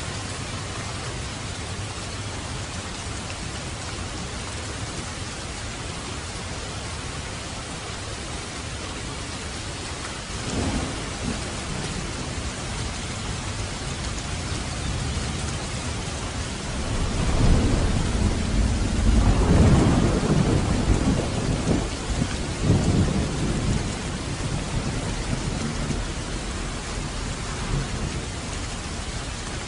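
Steady rain hiss, with thunder rumbling in about a third of the way through. A longer, louder roll of thunder builds past the middle, peaks, and rumbles away.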